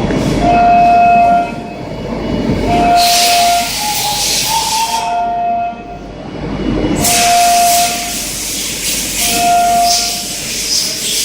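A CNC mill cutting 7075 aluminium with a 12 mm three-flute end mill spinning at 14,000 rpm. The cutter sings a steady high tone, its tooth-passing pitch, in repeated passes of about a second each. Between passes come loud stretches of hissing.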